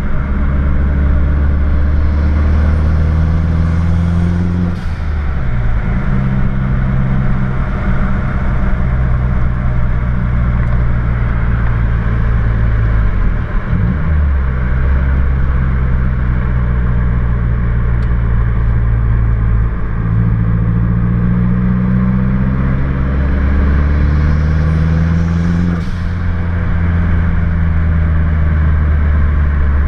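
Car engine and aftermarket exhaust heard from inside the cabin under acceleration, with no drone. The engine note climbs steadily and drops sharply at gear changes, about five seconds in and again about four seconds before the end.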